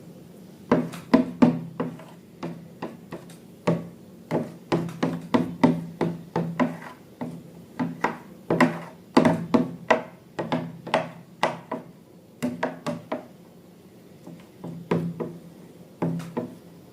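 Irregular series of sharp taps and knocks, several a second in clusters with a short pause near the end, over a faint steady low hum.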